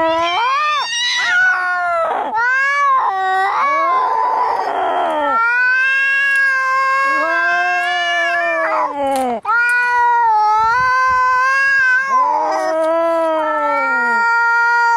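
Cats fighting: long, drawn-out yowls that rise and fall in pitch, nearly without a break, with a harsher, rougher cry about four seconds in.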